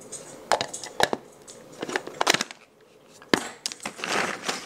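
Sharp plastic clicks and knocks as the lid of a pull-cord manual food chopper is fitted onto its bowl. Near the end the cord is pulled, spinning the blades through garlic and ginger with a crunching rattle.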